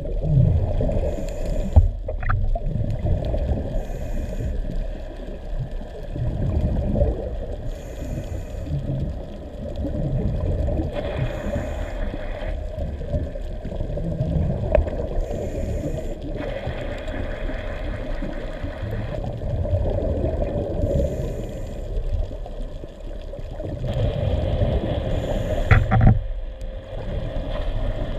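Underwater ambience picked up by a diving camera: a steady low rumble of moving water with bubbly, gurgling noise coming and going every few seconds.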